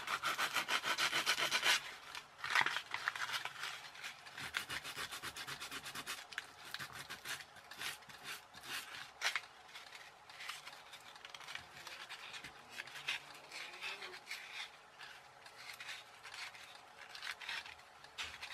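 Abrasive paper rubbed back and forth over the wire legs of a light-dependent resistor, cleaning them so they will take solder. A fast, louder run of strokes in the first two seconds, then lighter, uneven scratching.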